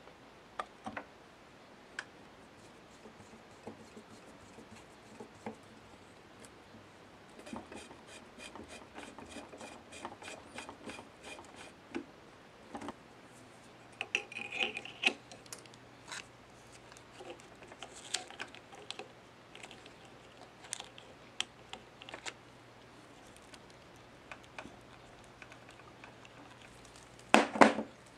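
Small metal parts and tools of a polisher under disassembly being handled and set down on a wooden table: scattered clicks and taps, a few seconds of quick even ticking about a third of the way in, and a cluster of louder knocks near the end.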